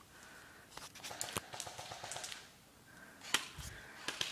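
Footsteps moving quickly through dry leaf litter, with rustling and scattered sharp twig snaps; the loudest snaps come about a second and a half in and again near three and a half seconds.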